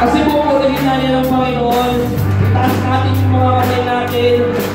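Live worship band playing: a drum kit keeping a steady beat with cymbals, along with keyboard, low bass notes and a singing voice. The bass moves to a different note about halfway through.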